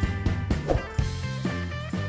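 Background music with a steady beat, about four beats a second, and guitar.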